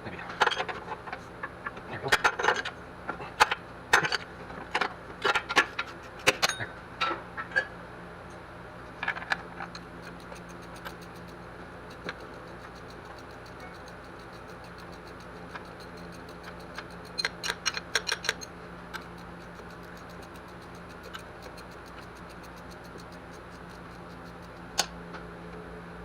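Metal hand tools and loose bolts clinking and clattering in irregular bursts during an engine teardown: a busy run of clinks in the first several seconds, a quick cluster past the middle and one last clink near the end, over a steady low hum.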